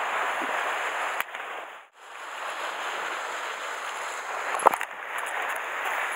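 Surf washing on the rocks and sea wind on the microphone, a steady hiss that drops out briefly about two seconds in. A single sharp knock comes about three-quarters of the way through.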